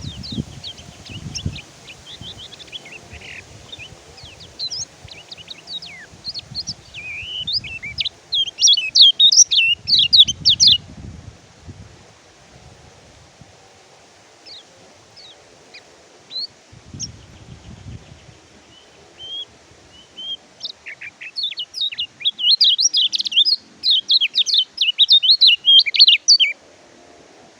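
Kecial kuning white-eye (pleci) singing: scattered quick high chirps, broken by two long runs of rapid, loud twittering song, one about a third of the way in and one near the end.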